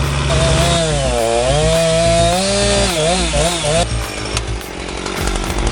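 An engine revving under load, its pitch rising and falling unevenly for about three seconds before it gives way to a rougher, noisier running sound.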